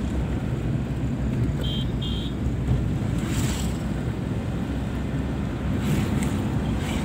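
Steady rumble of a moving vehicle on the road, with wind buffeting the microphone. Two short high-pitched beeps come close together about two seconds in.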